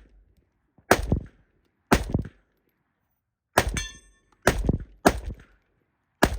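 Six rifle shots fired one at a time about a second apart, with a short metallic ring after the fourth.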